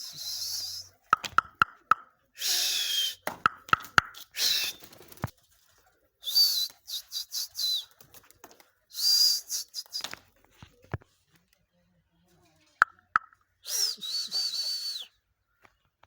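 A bird calling: a series of short, whistling calls with pauses between them, and a few sharp clicks in between.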